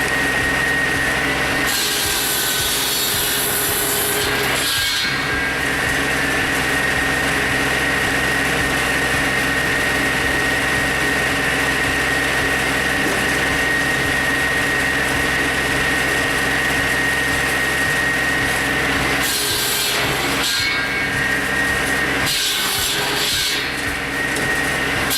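Firewood processing machinery running with a steady machine hum, over the rasp of wood being worked, which rises in several louder bursts.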